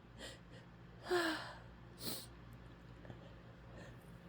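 A woman's breathy gasping inhales and a sniff while she fights off a sneeze, the build-up of a held-back sneeze. The strongest gasp comes about a second in, with a brief voiced catch, and another breath follows about a second later.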